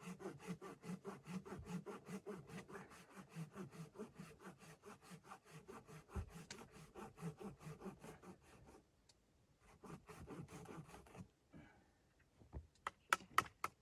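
Hand saw cutting wood in quick, even strokes, about five a second. The sawing stops about nine seconds in, starts again briefly, then a few sharp clicks follow near the end.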